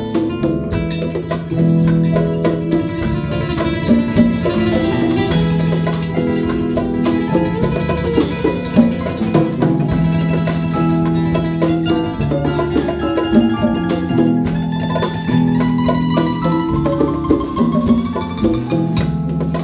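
Live band playing, with congas and a drum kit under held keyboard chords and guitars; one note slides upward near the end.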